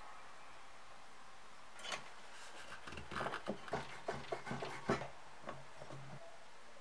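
A one-handed bar clamp being ratcheted tight onto a wooden hammer handle. There is a single click, then a second later a quick run of small clicks and clacks lasting about two seconds.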